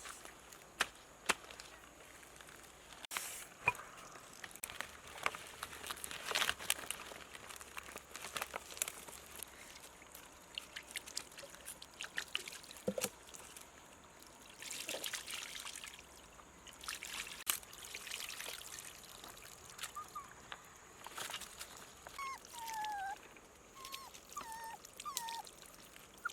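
Water pouring and trickling, with scattered small clicks and knocks. Near the end come a few short, high calls that glide downward.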